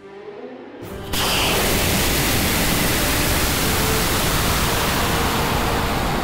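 About a second in, a sudden loud, steady rushing roar from a high-power model rocket's onboard camera at liftoff: the Aerotech H250 motor firing and air rushing past the airframe as it climbs.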